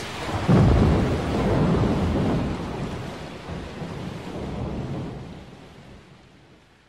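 Steady rain with a thunderclap about half a second in. The low rumble rolls on for several seconds, then everything fades out near the end.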